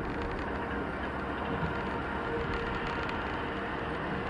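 Steady road and engine noise of a car driving at speed, heard inside the cabin.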